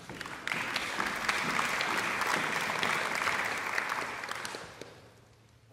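Audience applauding: the clapping swells sharply about half a second in, holds steady, then dies away shortly before the end.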